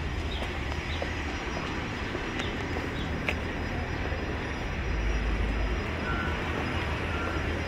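City street traffic: a steady low rumble of engines and tyres that swells as an SUV drives close past about five seconds in, with faint short high chirps early on.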